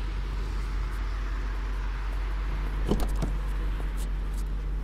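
Steady low rumble of an idling car and street traffic, with two short knocks close together about three seconds in as someone climbs into the car's back seat.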